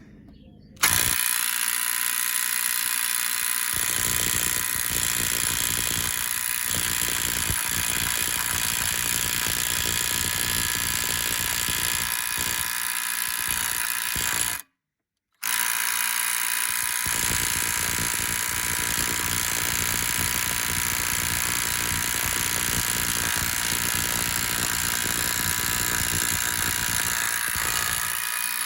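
Bauer 3/8 in. cordless impact wrench hammering continuously on a bolt torqued to 225 ft-lb, in two long runs with a short break in the middle. It fails to break the bolt loose: 225 ft-lb is more than this wrench can undo.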